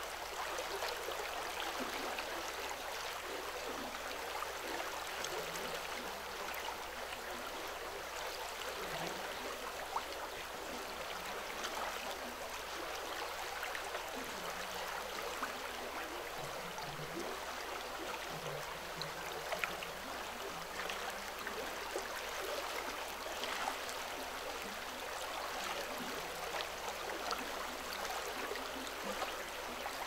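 Steady hiss of running water, like a small stream or trickle over an outflow.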